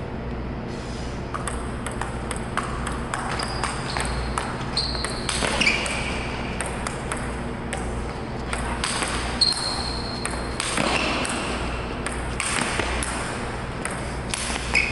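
Table tennis ball hit back and forth in a warm-up rally: quick clicks of the ball off the paddles and the table. A few short high squeaks and a steady low hum sound underneath.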